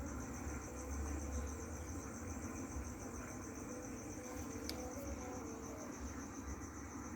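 Crickets trilling steadily in a fast pulsing rhythm, with a kite bow's faint wavering hum rising and falling in pitch as the wind plays on it. There is a low rumble underneath, and one small click about two-thirds of the way through.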